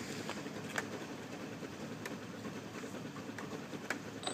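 Motor scooter engine idling faintly, a steady low hum with a few light ticks.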